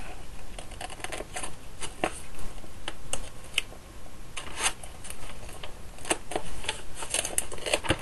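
Sheets of adhesive foam underlay with peel-off plastic backing being handled and flexed by hand: a scatter of irregular crinkles and sharp clicks.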